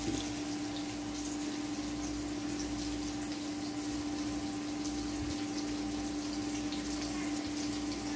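Chopped onions sizzling in oil in a frying pan, a steady hiss with faint crackles, as they are being browned. A steady low hum runs underneath.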